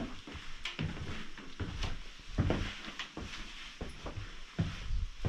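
Footsteps of people walking through a doorway and along a short passage, about two steps a second, with a few light knocks.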